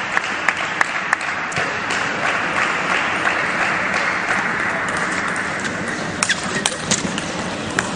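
Steady applause and crowd noise, with a few sharp clicks of a table tennis ball being struck in a rally near the end.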